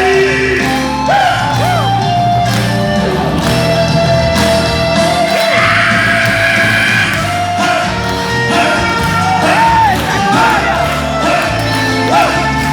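Gospel worship music with a band and singing voices, loud and continuous.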